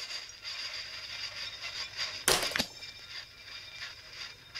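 A single .22 LR rifle shot from a Kidd Supergrade Ruger 10/22 semi-auto about halfway through, followed a fraction of a second later by a fainter second crack.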